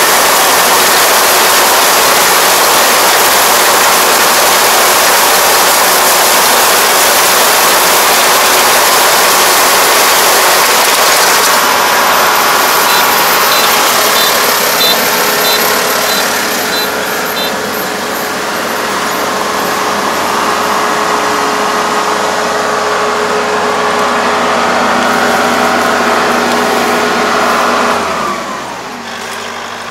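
Four-row combine harvester cutting and threshing rice, its engine running steadily under load with the machine's rattle and hiss. In the middle there is a short string of high beeps, and near the end the engine speed falls and the sound drops to a lower, quieter idle.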